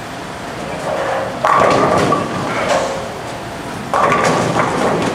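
Bowling ball rolling down a wooden lane and crashing into the pins about a second and a half in, with the pins clattering for about a second; a second crash of pins follows about four seconds in.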